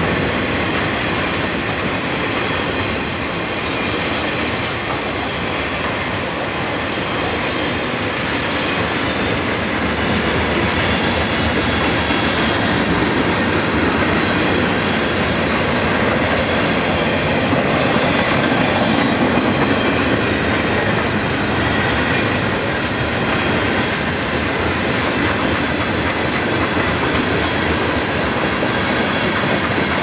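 Cars of a CSX freight train (boxcars, covered hoppers and tank cars) rolling past, their steel wheels running steadily on the rails.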